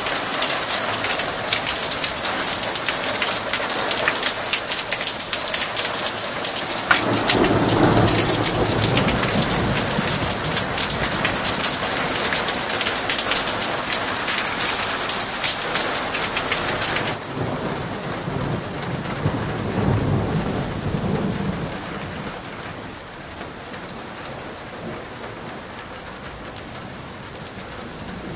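Heavy rain pouring down, a dense hiss full of close drops pattering and spattering, with thunder rumbling about seven seconds in and more faintly again later. The rain noise drops sharply about two-thirds of the way through and is quieter towards the end.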